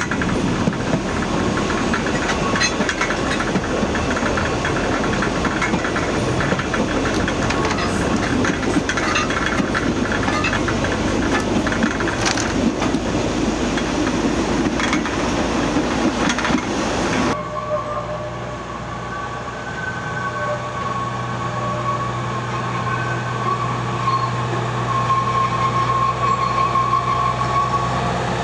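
Narrow-gauge forest railway coaches running, heard from an open end platform: wheels clacking and rattling over the track with brief high squeals. About two-thirds through it cuts to an Mk48 diesel locomotive approaching with its train, a steady low engine hum with a wavering high whine over it.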